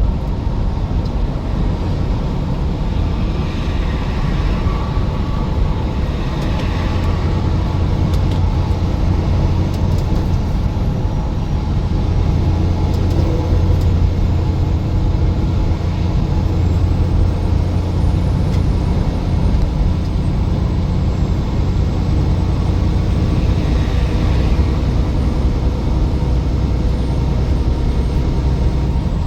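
Steady road noise inside a moving vehicle at highway speed: a constant low engine and tyre drone under a hiss of wind and road.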